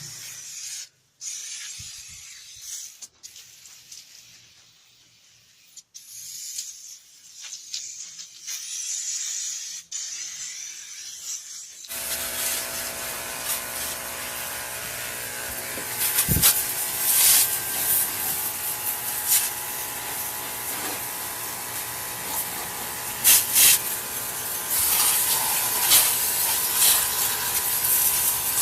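Hiss of spraying during an engine wash, coming and going for the first dozen seconds. About twelve seconds in it changes suddenly to a louder, steady spray hiss over a machine hum.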